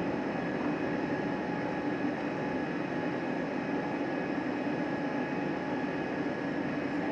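Steady airliner cabin noise of an Airbus A320neo climbing after takeoff: turbofan engines at climb power and rushing air heard through the fuselage, with a steady low hum and a fainter high whine.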